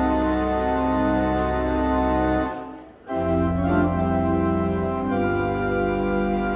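Church organ played in sustained chords over a deep bass; the sound breaks off briefly about halfway through, then a new chord comes in.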